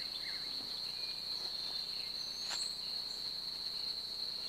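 Insects trilling steadily at one high pitch. A run of short, quick falling chirps dies out just after the start.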